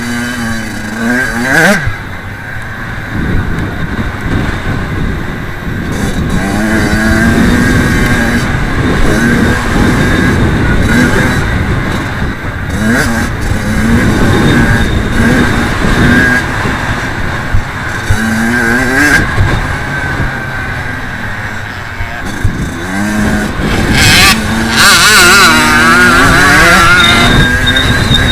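Kawasaki KX85 two-stroke single-cylinder dirt bike engine being ridden hard, revving up through the gears and dropping off again and again, its pitch rising and falling over and over.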